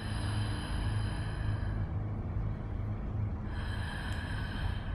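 Eerie horror-style background music: a low pulsing drone throughout, with a high held tone that sounds for about two seconds at the start and comes back about three and a half seconds in.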